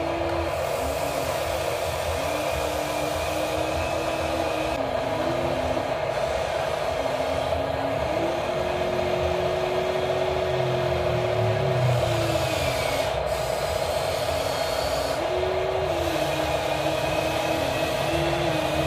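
Huina RC crawler excavator's electric motors and gears running as the boom, arm and bucket move through sand: a steady mechanical hum with a whine that shifts up and down in pitch as each movement starts and stops.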